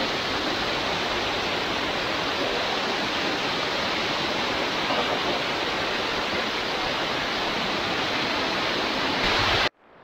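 The Radau waterfall's water pouring down a rock face and splashing onto the stones below, a steady loud rush that cuts off suddenly near the end.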